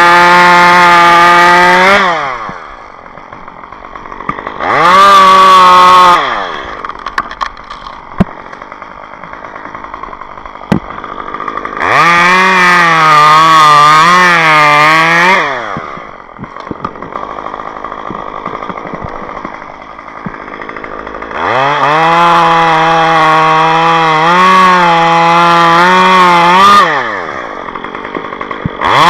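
Two-stroke gasoline chainsaw revved to full throttle in repeated bursts, dropping back to a rough idle in between. In the longer bursts the pitch dips and wavers as the chain bogs in the wood while cutting.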